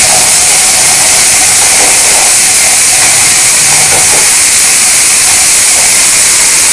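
Onion-tomato tadka sizzling steadily in ghee in a kadhai, fried to the stage where the ghee has separated, as crumbled paneer is tipped in and stirred with a spatula, with a few faint scrapes.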